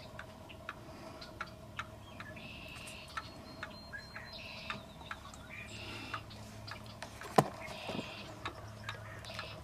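Wild turkey calling in short bursts every couple of seconds over scattered light ticks. A single sharp snap about seven seconds in is the loudest sound.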